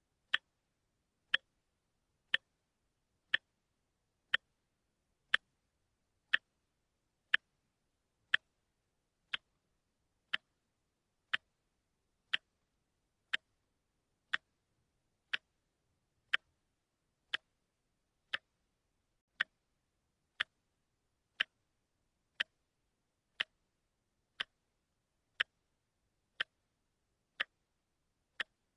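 Wristwatch ticking steadily, one sharp tick each second with silence between ticks.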